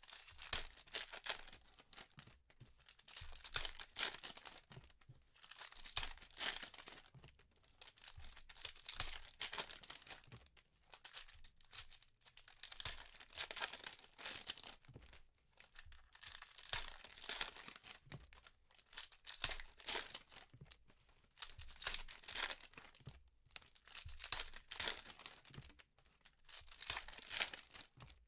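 Foil wrappers of 2015 Panini Prizm football card packs being torn open and crinkled by hand: a continuous run of short, irregular rustling and tearing bursts.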